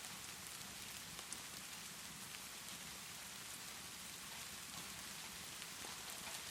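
Steady rainfall, an even hiss of drops, mixed with a gentle fireplace crackling in scattered small ticks and pops.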